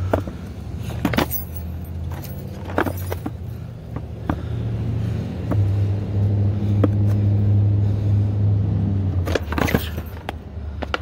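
Skateboard deck popping and landing on concrete: sharp wooden clacks with the trucks rattling, every second or two and in a quick cluster near the end. Under them runs a steady low engine hum from a car or truck, louder from about halfway through until shortly before the end.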